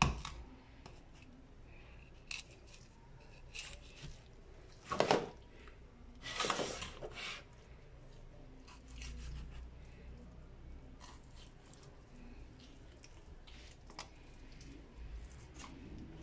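A knife cutting and tearing raw chicken meat away from the breast bone, with scattered small clicks of handling. Two louder, longer noises about five and six and a half seconds in.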